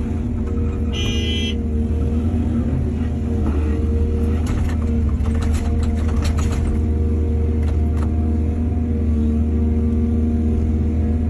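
Excavator's diesel engine running steadily under load, with a brief high squeal about a second in and scattered clanks and rattles from about four to seven seconds in, typical of the bucket working and soil being dumped.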